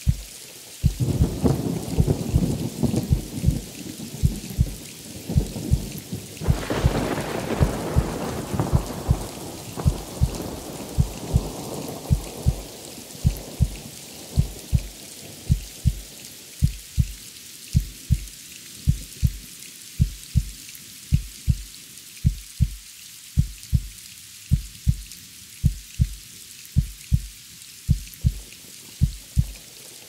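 Steady rain with thunder: a rumble rolls in about a second in, and a bigger peal about six seconds in rumbles away over several seconds. Under it a heartbeat thumps steadily at about one beat a second.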